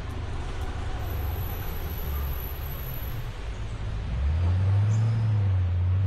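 Low vehicle engine rumble that swells louder about four seconds in.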